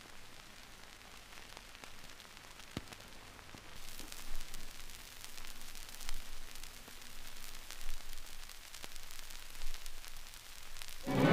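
Hiss and crackle of an old 1930s film soundtrack, with scattered clicks and pops, slowly growing louder and swelling about every two seconds.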